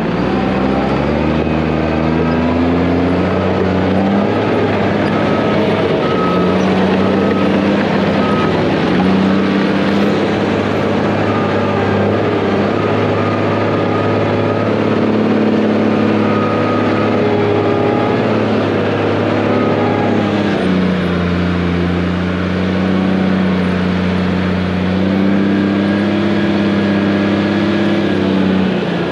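Dump truck's diesel engine running, heard from inside the cab as the truck drives across a rough dirt field. The engine pitch climbs and drops several times.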